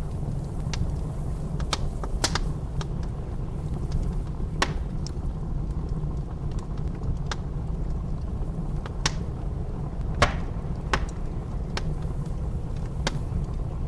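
Wood fire crackling, with sharp pops at irregular intervals, over a steady low rumble of blizzard wind.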